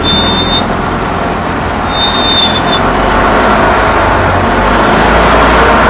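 A vehicle setting off and driving over rough dirt ground: a steady engine and road noise with a low rumble, growing a little louder as it gets going. A brief high-pitched whine sounds twice, at the start and about two seconds in.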